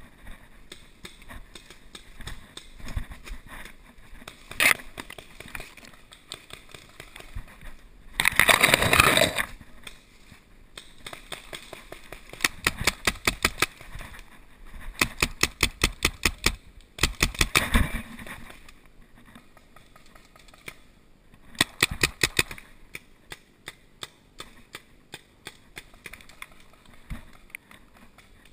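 Paintball markers firing in rapid strings of shots, several a second, in a few volleys through the second half. About eight seconds in, a brief loud burst of noise.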